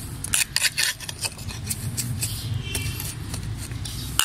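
Metal garden hand trowel digging and scraping through damp soil in a pot, a quick run of irregular scratches and small clinks, loosening the waterlogged soil so that it airs and dries out. A low steady hum runs underneath.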